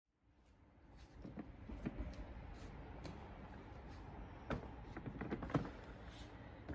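Faint scattered clicks and knocks over a low rumble, fading in from silence during the first second.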